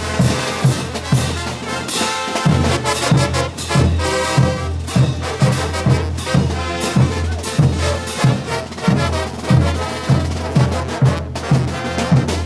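Bolivian brass band playing: trumpets and trombones carry the tune over a steady bass drum beat of about two strokes a second.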